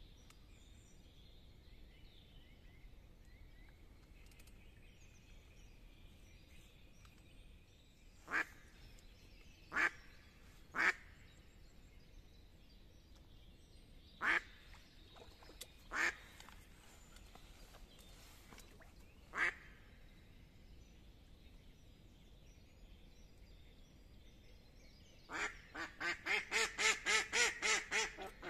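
Live decoy hen duck quacking. Six loud single quacks come spaced out through the middle, then near the end a fast, even run of quacks at about three or four a second: the hen's calling series, which draws drakes to the decoy.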